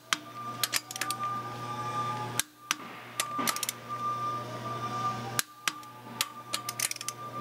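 Click-type torque wrench tightening flywheel bolts to about 55 lb-ft: irregular sharp clicks and ratcheting over a steady low hum. Each click marks a bolt reaching its set torque.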